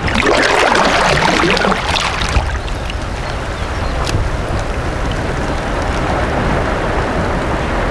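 Wind noise on the microphone over water lapping against a kayak, with a louder splashing swish in the first two seconds as a kayak paddle is dipped and laid down.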